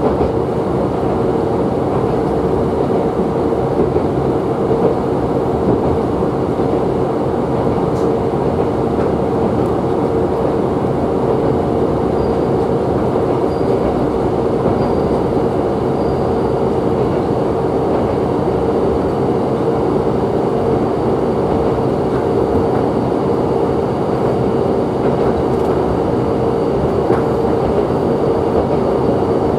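Interior of a Tsugaru Railway diesel railcar running at steady speed: a constant engine drone with a steady hum, under the rumble of wheels on the rails.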